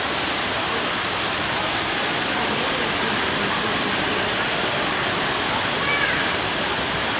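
Indoor waterfall: a steady, even rush of falling water pouring into a pool.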